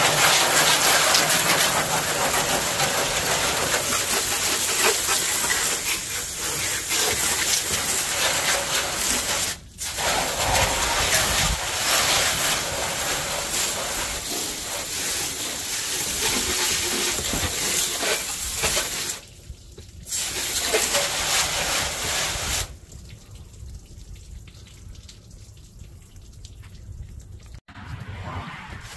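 A jet of water spraying against the underside of a pickup truck's raised hood, a steady loud hiss and splatter. It cuts off briefly about ten seconds in and again just before twenty seconds, then stops for good about three-quarters of the way through.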